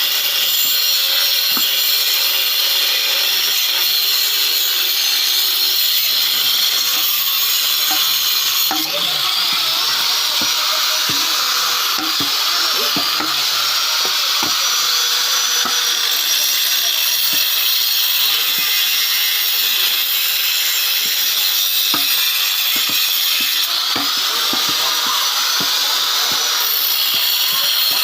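Bone-cutting machine running steadily while cutting beef bone, a loud hissing sawing sound with a high whine that shifts up and back down in pitch a couple of times.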